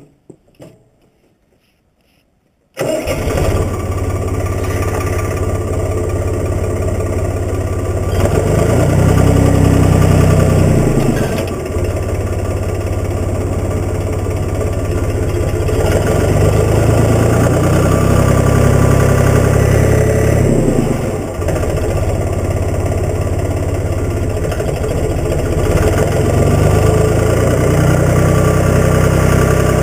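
Case 385 diesel tractor engine running, coming in abruptly about three seconds in after a few faint clicks. It swells louder and higher twice, as if throttled up, then settles back to a steady run.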